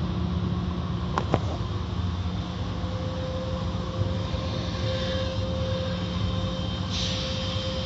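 Automatic tunnel car wash running, heard from inside the car: a steady machine hum with water spraying over the car. Two sharp knocks come a little over a second in, and a thin steady whine joins about three seconds in.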